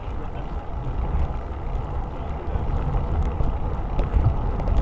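Wind buffeting the microphone of a bike-mounted rear camera while riding, a steady low rumble that rises and falls, with a few faint light rattles.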